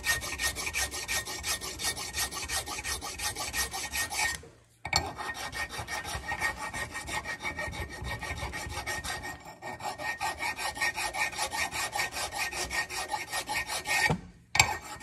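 Small hand file rasping back and forth across the steel pad-abutment surfaces of a brake caliper bracket in rapid short strokes. It is scraping off rust so the pad clips will seat flat. The filing pauses briefly about four seconds in and stops shortly before the end.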